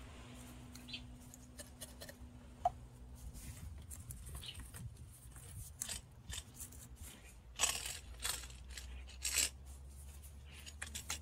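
Grey PVC water pipes being handled and pushed firmly into a plastic tee fitting freshly coated with PVC cement: faint clicks and knocks of plastic, with a few short scraping rasps, the loudest two a little past halfway and again about a second and a half later.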